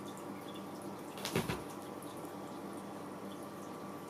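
A cat bumping the glass vase of treats: one short knock about a second and a half in, over a steady faint hum with light scattered ticks.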